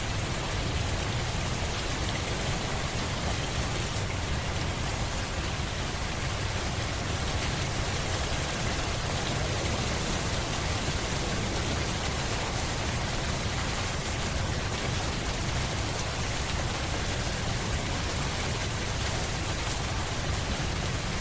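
Steady rain falling, an even hiss of drops with a low rumble underneath and no let-up.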